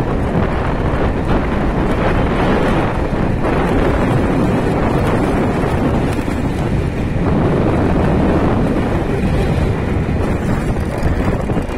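Freight train rolling past close by: a loud, steady rumble of its wagons' wheels on the rails.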